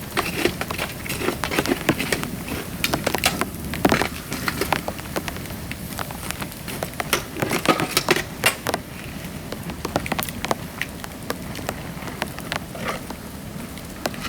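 Dry bamboo burning in a pail-can fire, crackling with many sharp pops. The pops come thick and fast for most of the first half and thin out after.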